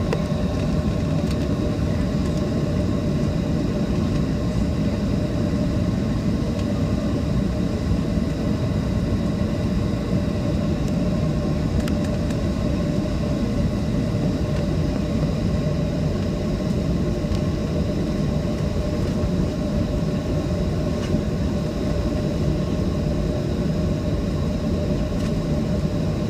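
Cabin noise of a Boeing 737-700 taxiing: the CFM56-7B jet engines running at idle, heard from inside the cabin as a steady rumble with a few faint steady tones above it.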